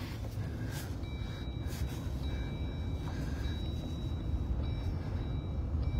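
Steady low rumble inside a stopped pickup truck's cab: the engine idling while strong, gusty wind from a snow squall buffets the vehicle, with a few faint ticks.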